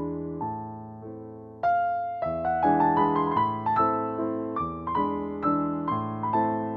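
Background piano music, notes struck at a steady pace, growing louder about a second and a half in.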